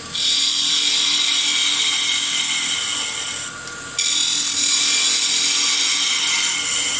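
Turning gouge cutting a spinning wooden spindle on a wood lathe: a steady hiss of the cut over the lathe's running hum. The cut breaks off briefly about three and a half seconds in, then resumes.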